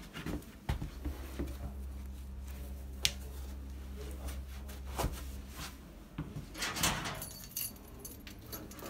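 Footsteps and scattered knocks over a steady low hum, then a locker door being opened and its contents handled near the end.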